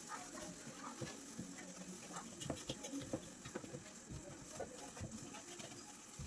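Faint, scattered light taps and knocks of items being handled while a fridge is cleaned, irregular and with no steady rhythm.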